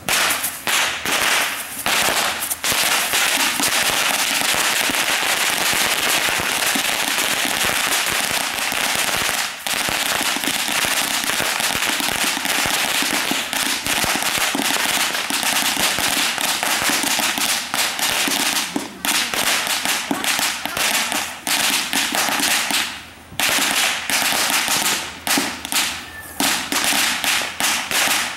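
Ground firework going off: a few sharp pops, then a dense, continuous crackle of rapid small bangs for about twenty seconds. After a short break near the end come scattered separate pops.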